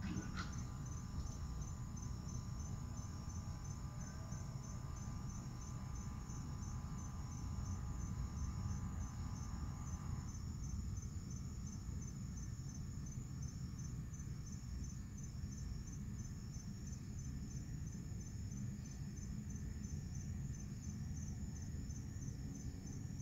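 Crickets chirping in a steady, evenly pulsing high trill over a low, steady background rumble. Faint steady tones underneath cut off about ten seconds in.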